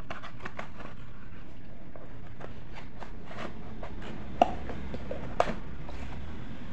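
Small cardboard relay box being handled and opened by hand: scattered light ticks and rustles of the flap and card, with two sharper clicks about four and a half and five and a half seconds in, over a steady low hum.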